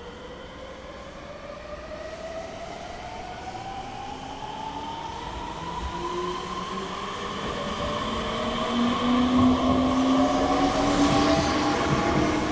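Meitetsu electric train pulling away and accelerating, its traction motors whining in several tones that climb steadily in pitch. The sound grows louder as the train gathers speed past the camera.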